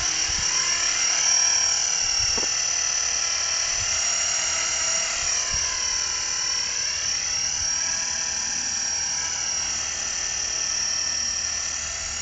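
Art-Tech Shark 450 SE radio-controlled helicopter's motor and rotor running with a steady high whine that dips and rises again in pitch partway through as the throttle changes. A brief knock comes about two seconds in.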